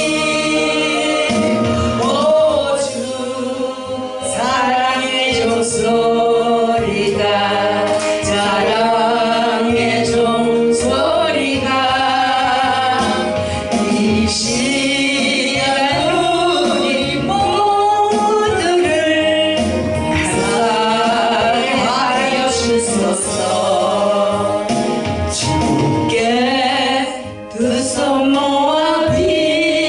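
Two singers performing a Korean gospel song as a duet over instrumental accompaniment, with long held notes and vibrato.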